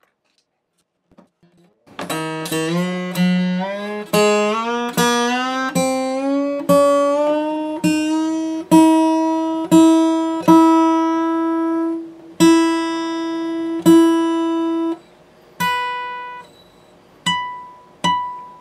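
Gibson J-50 acoustic guitar's newly fitted high E string plucked over and over while it is tuned up to pitch. Each pluck comes a little higher for several seconds, then the note holds steady. A few short, higher notes follow near the end.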